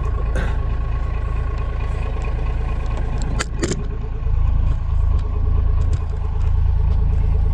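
An engine idling steadily: a low rumble under an even, pulsing hum. Two sharp knocks come about three and a half seconds in, and the rumble grows louder soon after.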